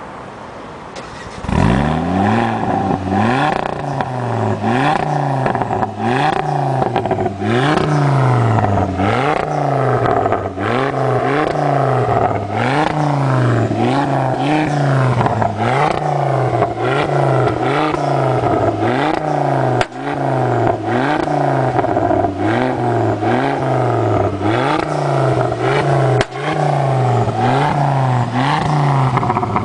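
Ford Focus ST225's turbocharged 2.5-litre five-cylinder engine heard at the tailpipes of a 3-inch stainless Cobra Sport cat-back exhaust with no centre silencer. It idles briefly, then is revved again and again, about once a second, the pitch climbing and falling with each blip, and eases back down at the very end.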